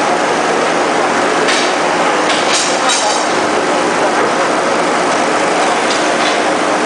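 Lead cathode casting machine running: a loud, steady mechanical din with a faint hum, and a few short sharp clicks, several of them close together near the middle.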